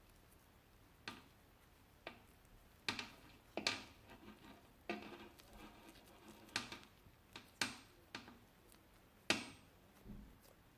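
Soft, irregular taps and knocks of a wooden rolling pin and hands on a board as stuffed paratha dough is sealed and gently rolled out, about a dozen light clicks with some rustling between them.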